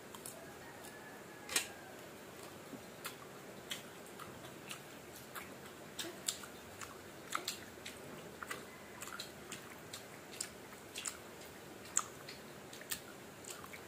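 Crunchy biting and chewing of firm, unripe green mango slices: irregular crisp crunches over the whole stretch, the loudest about a second and a half in and near the end.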